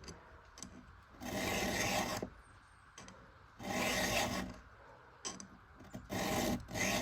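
Three slow strokes of a hand file across a chainsaw ripping chain's cutter, each about a second long, with light clicks between them. The file is taking the burr edge off a freshly sharpened cutter.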